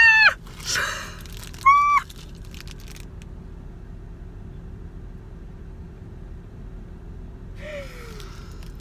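A woman's two short, high-pitched shrieks of delight with a sharp gasp between them, on finding the Amanita she was hoping for. After that a steady low hum inside the car, and a brief falling whimper near the end.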